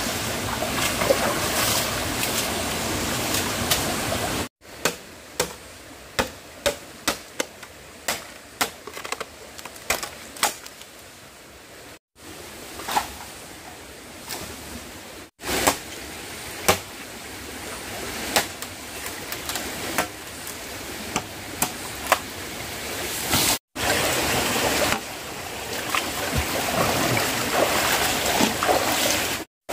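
Running stream water with a steady rush, broken by several abrupt cuts. In its quieter middle stretch come many short, sharp clicks and knocks.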